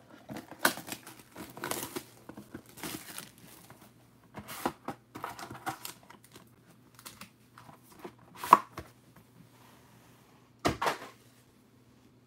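Hands opening a Panini Origins basketball card hobby box and handling its foil-wrapped pack: irregular crinkling and crackling of packaging, with sharp clicks and knocks, the loudest about eight and a half seconds in and another near eleven seconds.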